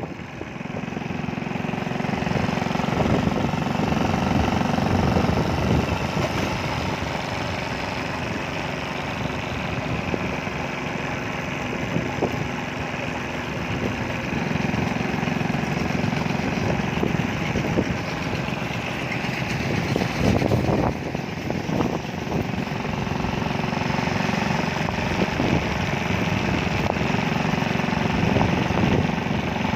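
Engine running steadily and close, its pitch swelling and easing a few times, with a few short knocks about twenty seconds in.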